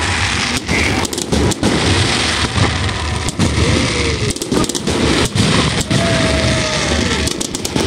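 Aerial fireworks shells bursting overhead in quick succession: a loud, continuous barrage of booms and crackle.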